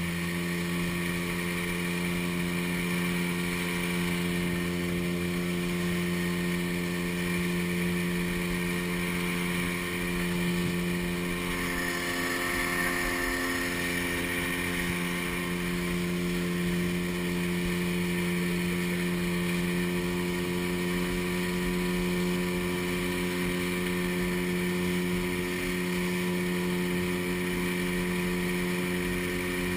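Outboard motor on a small open boat running at a steady cruising speed, one unchanging engine note over water rushing past the hull. The water noise swells briefly about twelve seconds in as the boat turns.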